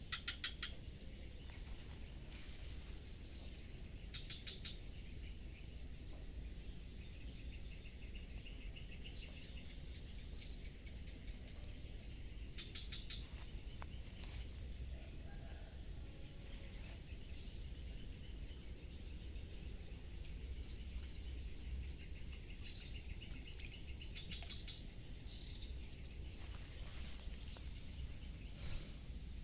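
Insect chorus: a steady high-pitched drone, with short rapid trills breaking in several times, over a low steady rumble.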